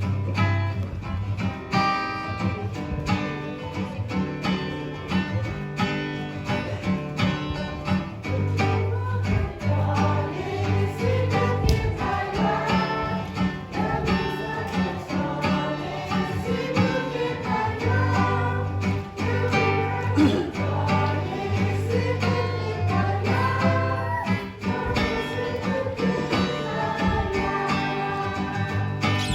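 Background music led by acoustic guitar, with a singing voice.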